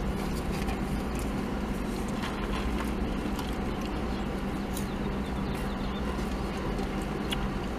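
Steady low hum of an idling car heard inside its cabin, with a few faint clicks.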